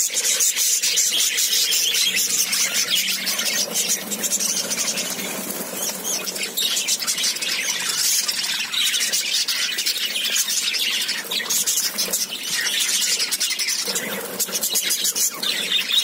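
A flock of budgerigars chattering, a dense, continuous mass of rapid high chirps.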